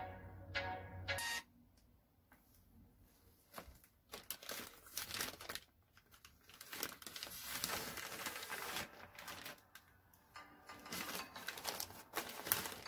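Music that cuts off suddenly about a second and a half in, then a plastic courier bag crinkling and rustling in irregular bursts as it is handled.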